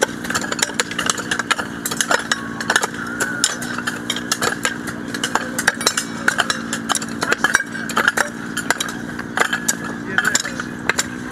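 Several metal hand hoes chopping into dry, stony soil, an irregular run of sharp knocks and scrapes from more than one worker at once. A steady engine-like drone runs underneath.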